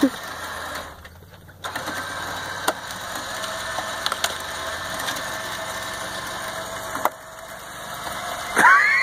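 Pickup truck engine running, with a steady motor whine from a 12,000 lb winch pulling the truck through a mud hole on a taut line. The whine drops out briefly about a second in, then runs until it stops about seven seconds in.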